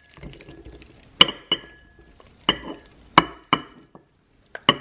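Serving utensil and pan clinking against a ceramic bowl as sauced rigatoni is scooped into it: about seven sharp, briefly ringing clinks spread over a few seconds, with faint squelching of the creamy pasta between them.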